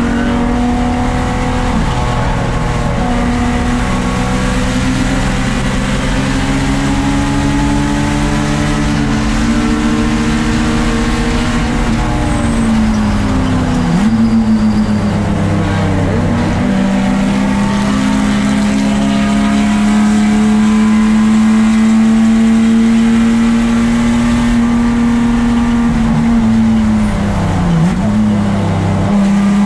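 1994 Lexus SC300's 2JZ straight-six engine running hard at racing speed. The engine note holds mostly steady at high revs, with brief sharp drops in revs around the middle and again near the end before it climbs back.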